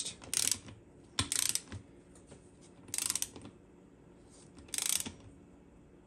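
Ratchet head of a click-type torque wrench clicking in four short bursts as it tightens the bolts of a beadlock wheel's ring.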